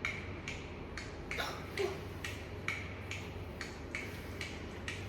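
A ball being dribbled: short, even bounces about two a second.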